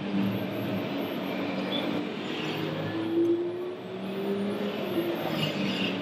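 Motor hum of radio-controlled model machinery as a model log crane works its grapple, with a tone that rises slowly in pitch midway through, over a steady background noise.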